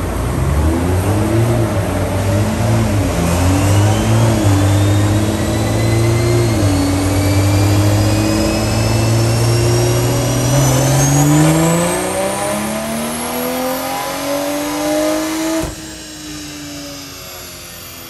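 BMW B58 turbocharged 3.0-litre inline-six, with a catless downpipe and stock exhaust, making a full-throttle dyno pull. The engine note wavers at first, holds and dips briefly about six seconds in, then climbs steadily under load with a high whine rising alongside. Near the end the throttle closes suddenly and the note falls away.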